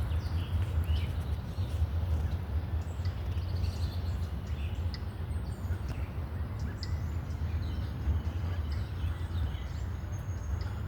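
Scattered short, faint bird chirps over a steady low rumble.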